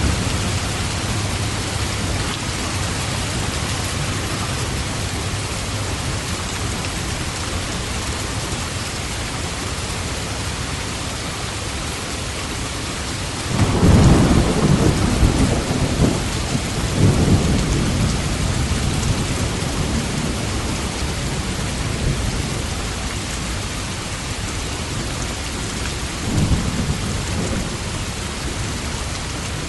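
Steady heavy rain during a thunderstorm. About halfway through, a thunderclap breaks in and rumbles on for several seconds. A weaker roll of thunder follows near the end.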